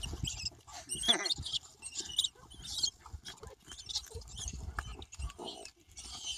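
Rats giving short, high-pitched squeaks over and over as dogs catch them.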